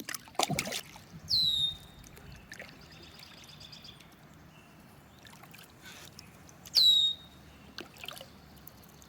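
A wild bird calling twice, each call a loud quick downward slur that settles onto a short held note, about a second in and again about seven seconds in, with a fainter buzzy note between them. A couple of sharp knocks sound in the first second.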